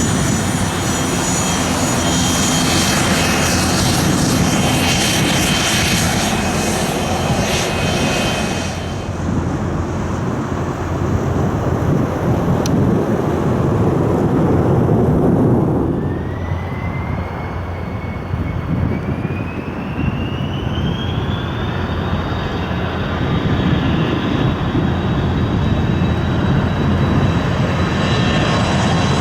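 Cessna Citation Latitude business jet's twin turbofan engines at high power on departure. For the first nine seconds there is a loud roar with a high whine. The high end then falls away, leaving a deep rumble, and a thin whine climbs in pitch in the second half.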